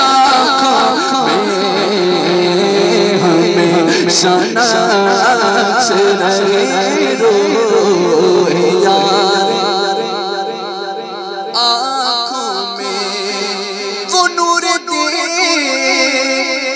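A man's voice singing an Urdu devotional kalam (naat) through a microphone and PA system, in long drawn-out, wavering lines without words breaking the notes.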